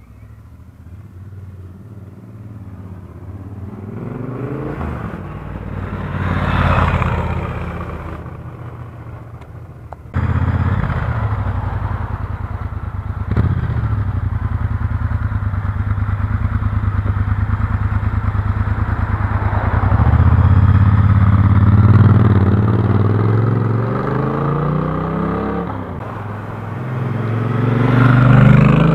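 Triumph Speedmaster 1200's parallel-twin engine. It approaches and passes with a rise and fall in pitch about seven seconds in, then after an abrupt change it idles steadily. It then pulls away, revving up with rising pitch, and passes close and loud near the end.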